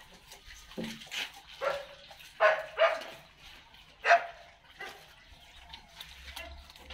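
A dog barking: a run of about six short, high-pitched barks, the loudest about two and a half and four seconds in.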